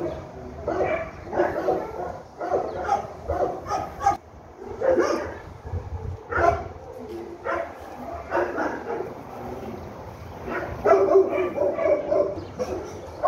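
A dog giving repeated short barks and yips, one every half second to a second, with a denser run near the end.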